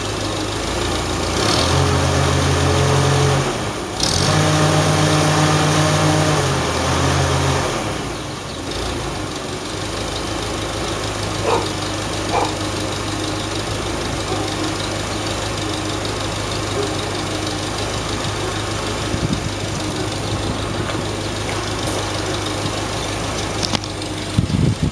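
1949 Farmall Super A's small four-cylinder gasoline engine running: louder with the throttle up for two stretches in the first eight seconds, with a short dip and a sharp click between them about four seconds in, then settling to a steady idle. A few light knocks near the end.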